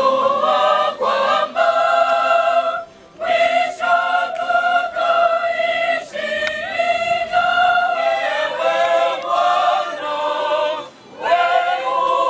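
Choir singing, in long held phrases with two short breaks, about three seconds in and again near the end.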